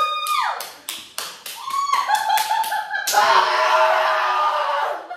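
A young man screaming and yelling in excitement: a long high yell that drops away at the start, a few sharp smacks, a run of short barking yelps like seal noises, then about three seconds in a loud, harsh scream that cuts off near the end.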